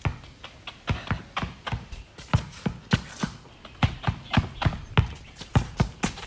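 Basketball dribbled hard on a concrete court in in-and-out dribble moves, bouncing in a steady rhythm of about three bounces a second.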